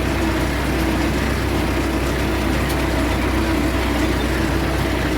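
MTZ-50 tractor's four-cylinder diesel engine running steadily with a deep, even drone.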